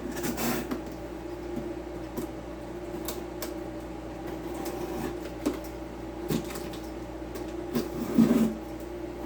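A cardboard box being cut open with a knife and handled, with scattered scrapes, clicks and cardboard knocks, the loudest about eight seconds in, over a steady low hum.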